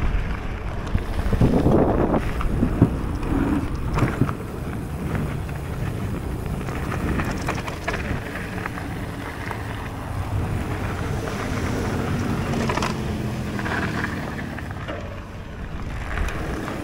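Mountain bike rolling fast down a gravel trail, with wind buffeting the microphone and tyre noise over loose surface, broken by a few sharp knocks and rattles from the bike over bumps.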